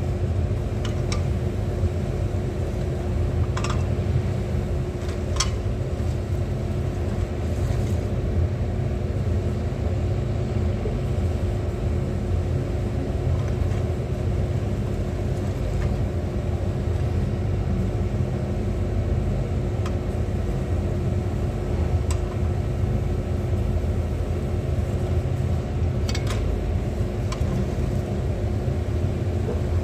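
Engine running steadily: a deep, even rumble with a constant hum over it and a few faint clicks.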